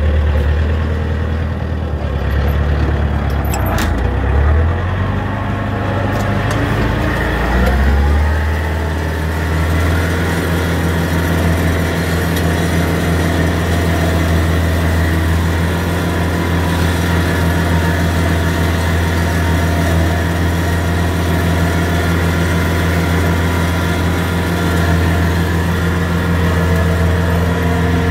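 Antonio Carraro TC5800F tractor's engine running under load while driving its offset flail mower, heard from inside the cab. The engine note wavers for the first several seconds, then settles to an even, steady running sound about eight seconds in.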